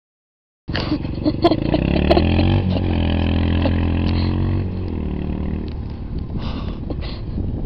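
Suzuki quad bike's engine revving up with rising pitch, a few sharp clacks in the first seconds, then holding steady and dropping in pitch and level as it pulls away. The sound starts abruptly after a brief silence.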